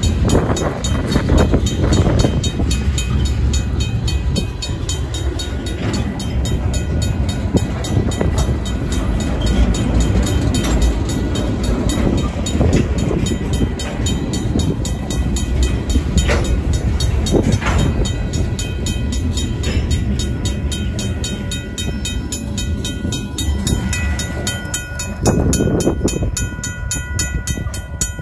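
Freight cars, tank cars and then covered hoppers, rolling past over the rails with a steady rumble and occasional clanks. A RACO mechanical crossing bell rings rapidly throughout. The rolling noise eases near the end as the last cars go by, leaving the bell clearer.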